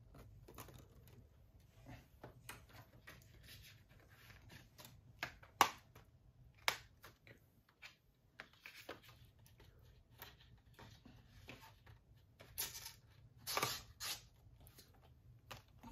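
A plastic Blu-ray case and its packaging being handled, with scattered small clicks and snaps. Two sharper snaps come about six seconds in, and a couple of short rustling bursts come near the end.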